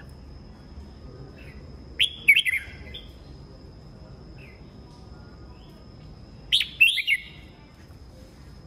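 Red-whiskered bulbul singing two short, quick phrases about four and a half seconds apart.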